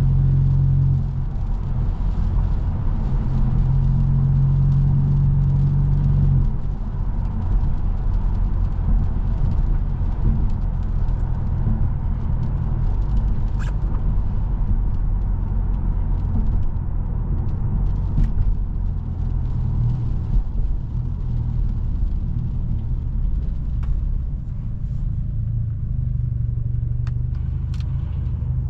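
Straight-piped BMW F30 328i's turbocharged four-cylinder cruising, the exhaust a steady low drone. The drone is heavier for the first second and again from about three to six seconds in, then eases to a lighter note. A few short sharp clicks or knocks come through in the middle and near the end.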